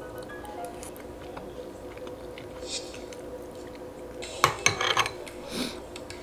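Dishes and utensils clinking and clattering, with a short run of louder clatters about four and a half seconds in.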